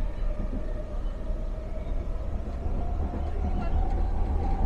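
Expo Line SkyTrain car running along the guideway: a steady low rumble under the whine of its linear induction motor, which slowly rises in pitch as the train gains speed.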